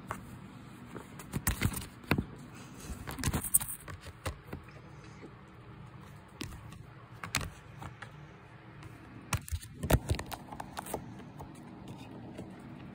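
Handling noise: scattered taps, knocks and scrapes from a tabby cat moving in a plastic laundry basket and pawing right at the phone. They come in clusters about 1.5 to 2 seconds in, around 3.5 seconds, once near 7.5 seconds and in a burst about 10 seconds in, over a faint steady hum.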